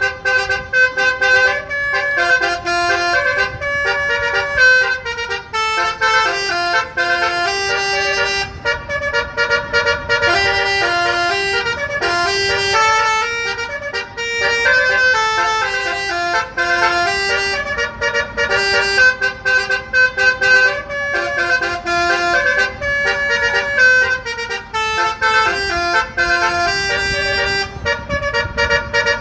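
Basuri telolet horn, an Indonesian bus's multi-tone air horn, playing a melody as a long run of stepping notes held one after another, sometimes two at once.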